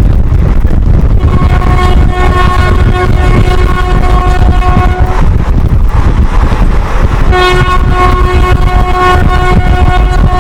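WAP-4 electric locomotive's twin-tone horn sounding two long blasts, the first about four seconds long and the second starting about seven seconds in and still going at the end. Under it runs the loud, steady rumble of the train moving at speed.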